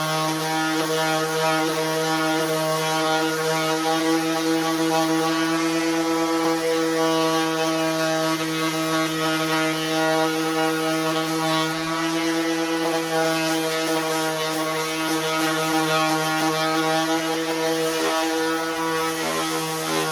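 Electric orbital sander running steadily, a constant motor hum with a high hiss of fine 300–400 grit sandpaper working over a wooden rifle stock.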